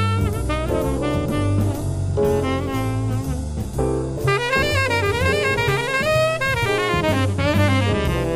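Small-group jazz recording: a tenor saxophone plays quick melodic runs over bass and drum kit.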